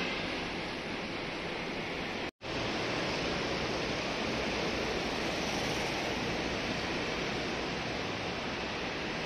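Steady, even outdoor hiss with no clear pitched sound in it, cut off completely for a split second about two seconds in.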